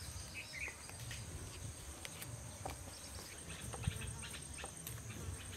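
Quiet outdoor ambience dominated by a steady high insect chirring, with scattered light clicks and scrapes from a knife peeling and cutting a bottle gourd.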